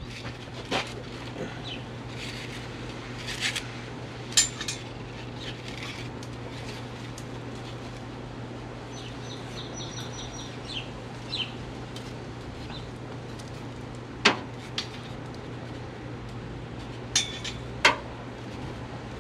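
Scattered metallic clinks and taps of hand tools against metal fittings, with a brief run of light ticks about halfway through, over a steady low hum.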